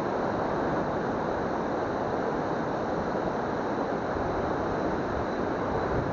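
Waterfall on a river: a steady rush of falling water.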